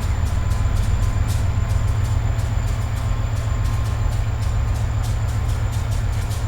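A train running on the rails: a heavy, steady low rumble with a run of irregular clicks from the wheels on the track.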